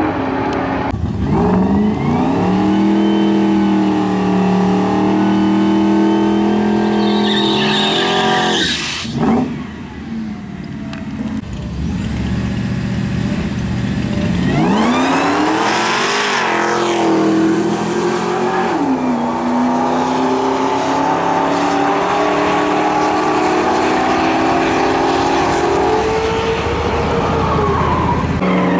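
Drag-racing cars' engines running loud and steady. About halfway through, a pair launches hard off the line, the engines climbing steeply in pitch, dropping once at a gear change, then pulling on steadily as they accelerate away down the strip.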